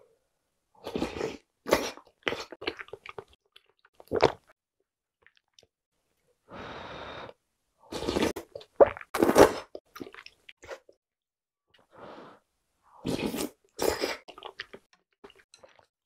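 Slurping of spicy knife-cut noodle and hand-torn dough soup from a ladle, in several short bursts as broth and noodles are sucked in, with chewing between.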